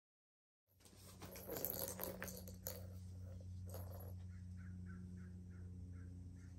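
Plastic balls clattering in the tracks of a three-tier cat ball-track toy as a cat noses and paws at it, starting abruptly about a second in. After that comes a run of short high chirps, about three a second, over a steady low hum.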